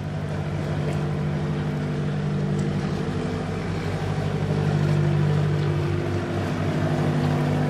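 A narrowboat's diesel engine running steadily, getting a little louder from about halfway through.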